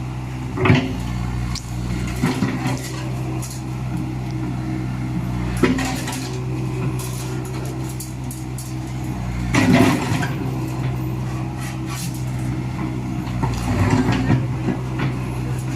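Komatsu hydraulic excavator's diesel engine running steadily, with several sharp metallic clanks and scrapes from the bucket and arm at irregular intervals.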